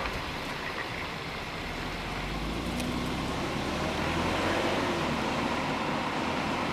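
Police SUV driving off down the street: a steady engine rumble and tyre noise that swells a little from about a second and a half in.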